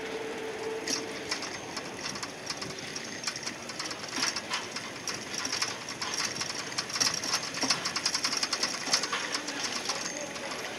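Bicycle freewheel hub ticking rapidly as the bike coasts, the clicks thickest from the middle to near the end.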